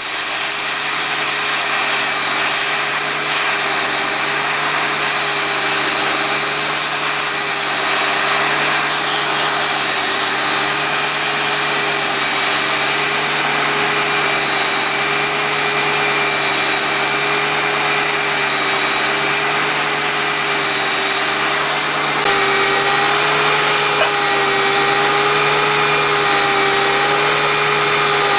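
A machine motor running steadily, with a slightly wavering hum. About 22 seconds in, a second, higher-pitched tone joins it.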